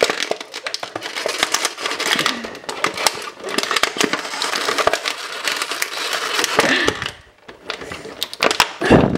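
Thin clear plastic blister packaging crackling and crinkling as toy pieces are pushed out of it, thinning to a few separate sharp clicks near the end.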